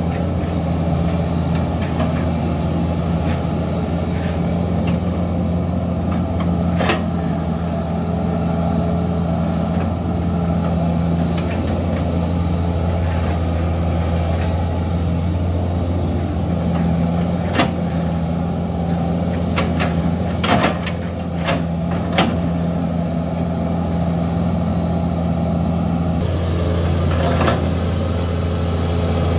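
Hitachi hydraulic excavator's diesel engine running steadily, with a few sharp knocks as the knife bucket chops into felled oil palm trunks, most of them bunched together past the middle.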